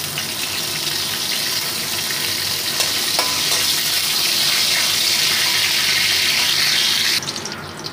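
Chopped garlic and green chillies sizzling in hot oil in a kadai, stirred with a flat spatula; the sizzle is steady and cuts off suddenly near the end.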